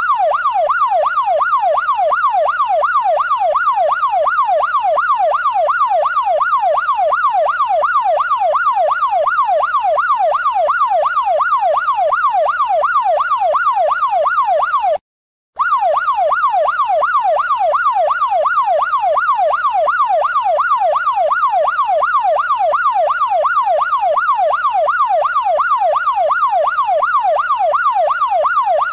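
Electronic police siren in fast yelp mode, its tone sweeping up and down about three times a second. It cuts out for about half a second near the middle, then carries on.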